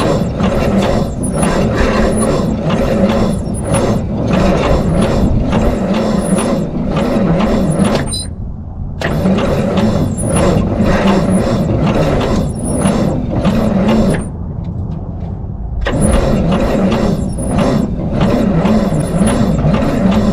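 779-cubic-inch Waukesha straight-six being cranked over by its starter, a rhythmic churning of the engine turning over, in three long runs with short breaks about 8 seconds in and about 14 seconds in. It is being cranked on starting fluid after sitting for decades, trying to make it fire.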